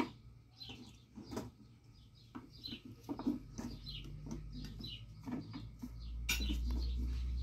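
Sharp knocks of a knife and hammer working cast lead fishing sinkers off their casting bars on a wooden stump, a few times, the loudest right at the start. Small birds chirp over and over throughout, and a low rumble rises in the last second or so.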